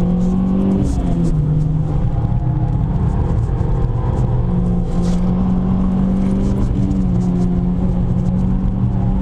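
Renault Clio 3 RS's 2.0-litre four-cylinder engine running under load through an aftermarket Devil silencer and intertube exhaust. The note holds a fairly steady pitch with a few small shifts.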